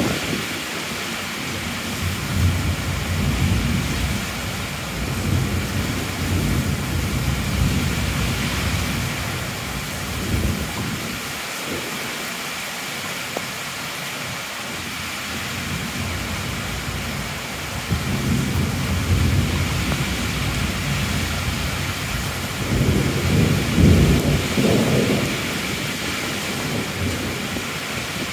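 Heavy rain falling steadily through a thunderstorm, with thunder rolling in several long low rumbles. The loudest roll comes near the end.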